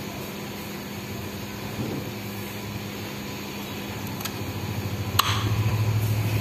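A steady low machine hum. About five seconds in there is a sharp click, and a louder low drone with a rapid even pulse starts.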